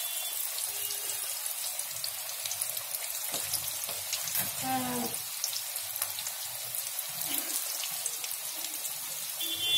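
Battered onion pakoras deep-frying in hot oil in an aluminium kadhai: a steady sizzle of bubbling oil, with many fine crackles and pops.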